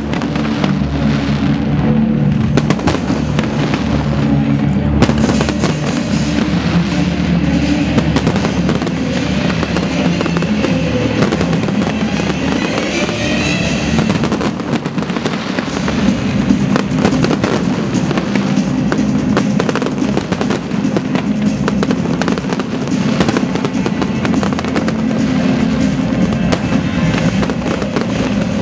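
A fireworks display: aerial shells bursting and crackling in a continuous barrage, with music playing underneath.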